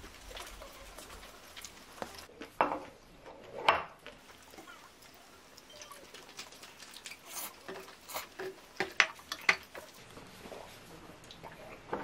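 Quiet eating at a table: wooden chopsticks tapping and scraping a ceramic plate in scattered light clicks, with a few soft slurps of cold noodles, louder about a third of the way in.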